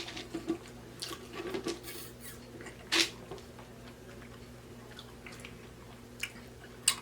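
Close-miked chewing and lip-smacking, soft wet mouth clicks with one sharper click about three seconds in, over a steady low electrical hum.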